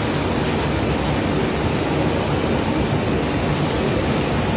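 Chicken pieces frying in oil in a large iron kadai: a steady, even sizzle, with the gas burner under the pan running.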